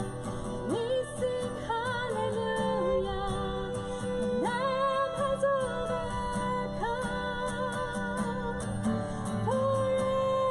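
Woman singing a worship song, accompanied by acoustic guitar and violin.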